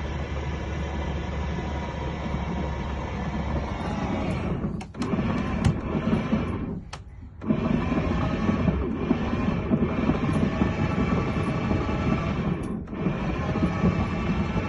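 Boat's electric anchor windlass running, paying out or hauling in the anchor, with brief stops about five, seven and thirteen seconds in as the control is released and pressed again.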